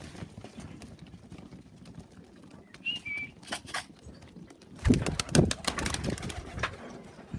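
Pigeons in a loft cooing low, with one short high squeak about three seconds in. From about five seconds comes a loud run of clattering knocks.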